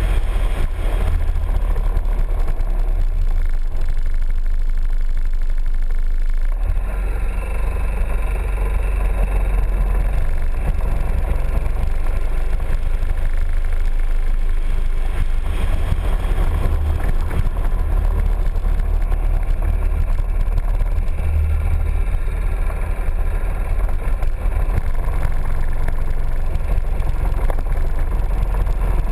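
Piaggio MP3 three-wheeled scooter running steadily under way, its engine and road noise heard from the scooter itself as a continuous low rumble. The sound shifts in character about six and a half seconds in.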